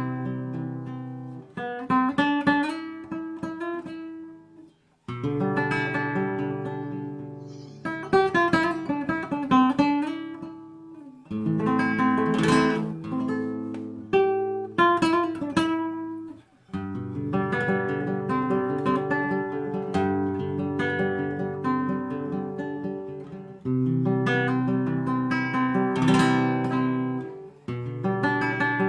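Solo acoustic guitar played live: chords strummed and left to ring, with bursts of quick strumming and picked notes, in phrases a few seconds long separated by brief pauses.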